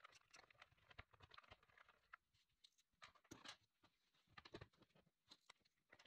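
Near silence, with faint scattered clicks and taps from a plastic motorcycle side panel and its bolt being handled and fitted by hand.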